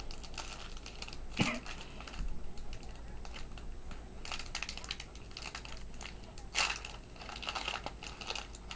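Hands handling a trading card box and its packaging: scattered clicks, taps and rustles, with sharper knocks about a second and a half in and again near six and a half seconds.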